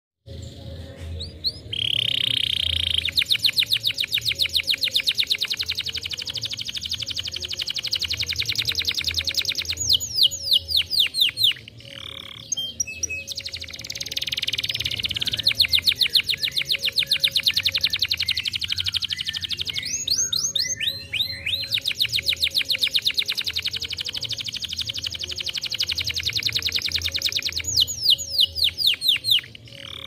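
Domestic canary singing: long, fast trills of rapidly repeated notes, each held for several seconds. The trills break about a third of the way in, again about two-thirds in and near the end for a few quick falling whistles before the rolling starts again.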